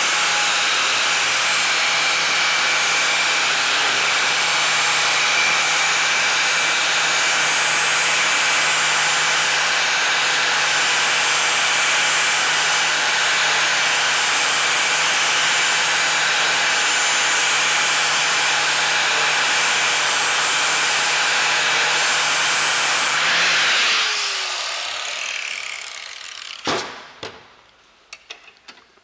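Handheld angle grinder grinding the cutting edge of a steel lawn mower blade clamped in a vise: a loud, steady grinding hiss over the motor's whine. About 24 seconds in the grinder is switched off and winds down with a falling tone, followed by a couple of sharp knocks as the blade is handled.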